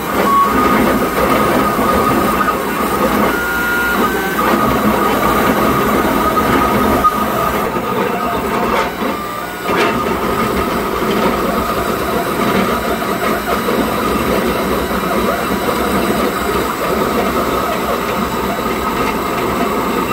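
Longmill MK2 CNC's stepper motors driving the gantry rapidly back and forth as it engraves with a 24-watt laser at maximum speed settings: a loud, continuous, awful-sounding mechanical chatter with a steady whine running through it. Despite the sound, the motors miss no steps.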